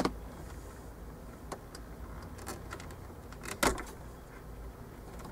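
Scissors snipping through thin stereo wiring-harness wires: a few short, sharp clicks, the loudest a little under four seconds in.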